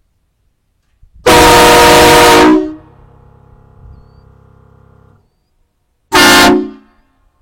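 Truck-mounted train horn system (Nathan K5 chime and Horn Blasters conductor horns on a 200 PSI onboard air system) sounding a loud multi-note chord: one blast of about a second and a half, then a short blast of about half a second near the end.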